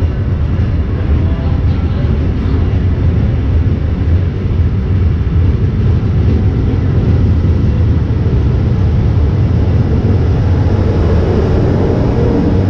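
Brightline passenger train, hauled by a Siemens Charger diesel-electric locomotive, moving past the platform with a steady, loud, deep rumble.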